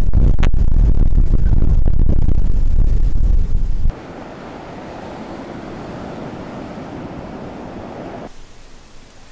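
Wind buffeting the microphone with a heavy low rumble, cutting off abruptly about four seconds in to a softer, steady rushing noise that fades near the end.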